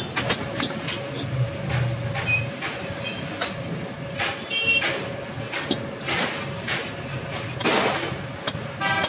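Hand hammer striking rivets and sheet iron on an anvil as a metal handle is riveted onto a large iron pan: irregular sharp metallic blows, roughly one or two a second.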